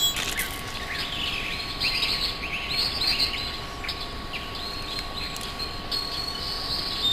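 Birds chirping: many short, quick chirps, over a faint steady tone.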